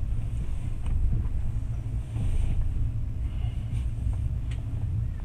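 Steady low rumble of a moving car heard from inside the cabin: road and engine noise, with a few faint ticks.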